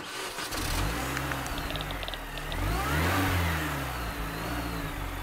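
Car engine revving: it starts abruptly, rises to its loudest about three seconds in, then drops back to a steady run.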